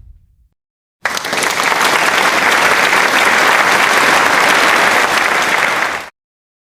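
Crowd applause: many hands clapping, starting abruptly about a second in and cut off sharply about five seconds later. The tail of a low boom dies away just before it.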